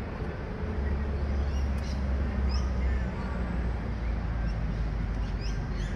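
Birds calling in short, high, rising chirps several times, over a steady low rumble.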